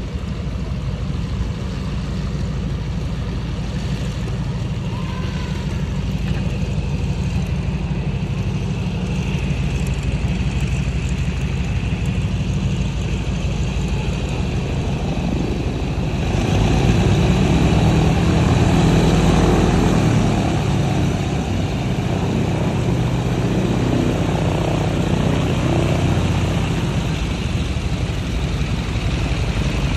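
Boeing Stearman biplane's radial engine running at low power as it taxis, the propeller beating steadily. It grows louder for a few seconds just past the middle, then settles again.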